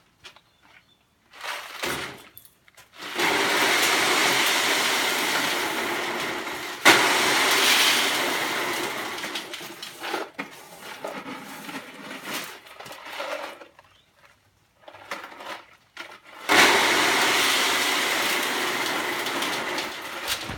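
Stones poured down a metal chute, a long rattling rush that starts abruptly about three seconds in and fades away. A second loud clatter comes partway through, and another pour starts near the end.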